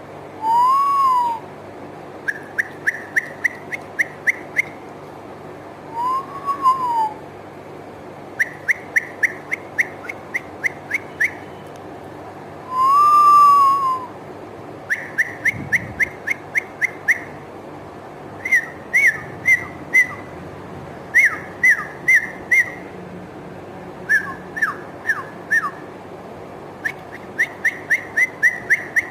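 A bird-imitating whistle sound effect. Three long whistles rise and fall in an arch, the third the loudest, and between them come quick runs of short chirps, about three a second, in groups of several, over a faint steady low hum.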